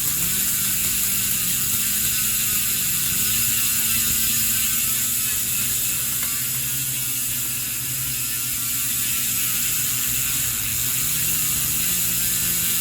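Speedone Soldier bicycle hub freewheeling: a steady, dense buzz of pawls clicking over the ratchet as the wheel spins.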